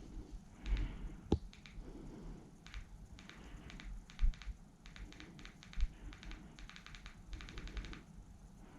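Runs of quick, light clicks and taps, with a few dull thumps among them.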